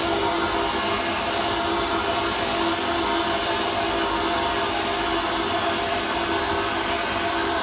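Wet sandblasting cabinet running: a steady hiss of water and glass-bead grit jetting from the blast nozzle, over a steady hum from its pump.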